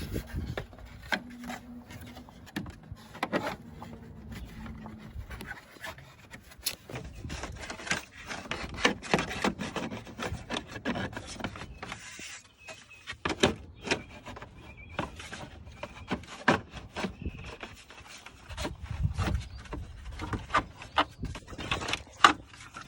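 Plastic radiator fan shroud being worked back into place in the engine bay: irregular scraping and rubbing of plastic against plastic and metal, with many scattered knocks and clicks.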